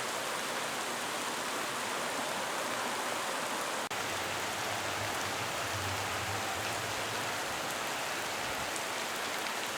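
Rain falling steadily, an even patter of drops with no thunder, with a brief dropout about four seconds in.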